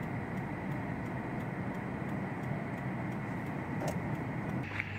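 Steady car noise: an engine running with a low rumble and an even hiss. It changes abruptly near the end.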